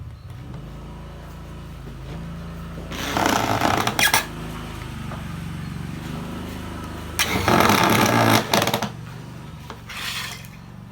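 Power drill drilling in three loud bursts, about a second, a second and a half, and half a second long, over a steady low hum.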